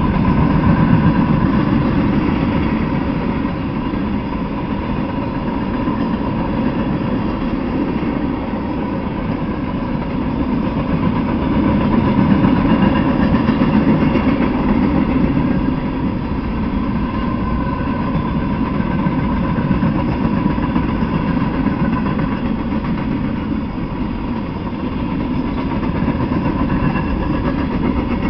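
Freight train of tank cars and covered hopper cars rolling past: a steady rumble of wheels on the rails, swelling louder about a second in and again around twelve to fifteen seconds in.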